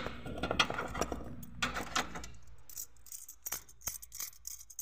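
Hand-handling noise and metallic clicks, clinks and rattles from a rusty oil-filter strap wrench being handled in a car's engine bay. Rubbing noise in the first two seconds gives way to scattered sharp clinks.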